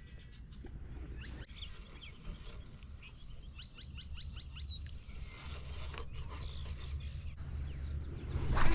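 Wild birds chirping and calling, one giving a quick run of about eight rising chirps about four seconds in, over a low outdoor rumble. A louder short burst of noise comes near the end.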